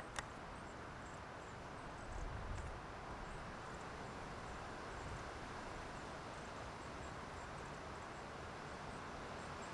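Faint, steady outdoor background noise of open-air roadside ambience, with a single sharp click right at the start and faint high ticking chirps scattered throughout.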